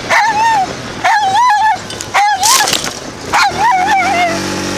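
Pig-hunting dogs giving short, wavering yelping barks, about six in quick succession, while running after pigs.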